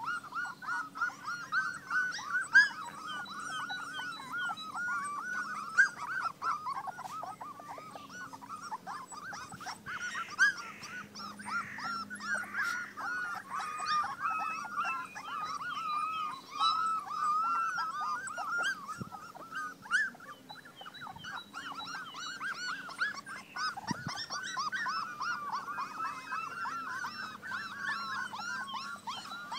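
A litter of four-week-old Belgian Malinois puppies whining and squeaking, many short high calls overlapping without a break.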